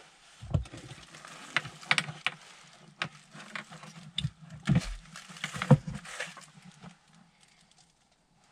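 Hollow plastic knocks and clunks, with some rustling, as a motorcycle top box is handled and turned over on a wooden workbench and its base plate is worked loose. The sharp knocks come irregularly, the loudest at about half a second, just under five seconds and just under six seconds in, and they stop about a second and a half before the end.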